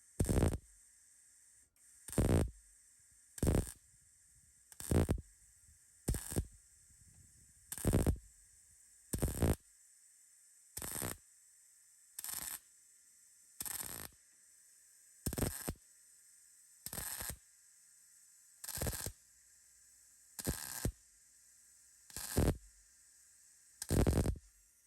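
Titanium MIG 140 welder laying short stitch welds on sheet metal: about sixteen brief bursts of arc, each under half a second, one roughly every one and a half seconds, over a faint steady hum.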